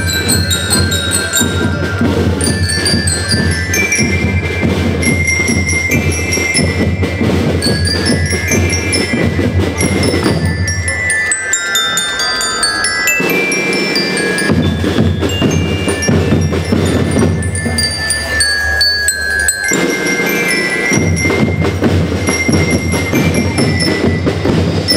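School marching rhythm band playing: bell lyres pick out a high, bell-like melody over snare and bass drums. The drums fall away for a few seconds near the middle, and again briefly later, while the lyres carry on.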